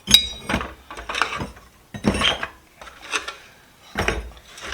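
Rusty steel wrenches clanking against each other and the metal toolbox as they are handled and pulled out, in short groups of clinks about a second apart.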